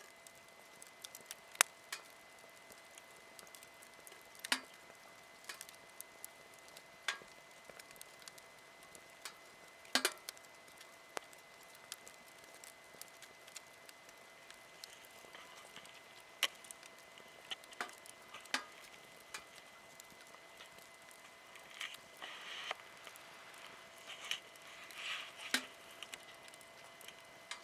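Wood fire crackling: irregular sharp pops and snaps over a faint hiss, with a few short hissing, sizzling stretches in the last few seconds.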